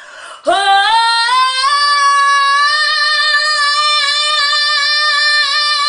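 A woman singing one long, loud, high note in a small bathroom, sliding up into it about half a second in and then holding it steady.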